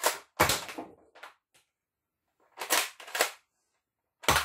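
Zuru X-Shot Regenerator toy foam-dart blaster being primed and fired: a string of sharp plastic clacks and snaps from its mechanism, coming in small groups with short silences between.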